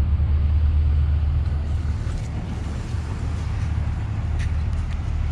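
Steady low drone of a vehicle on the move, engine and road rumble heard from inside the cabin, with a couple of faint clicks near the end.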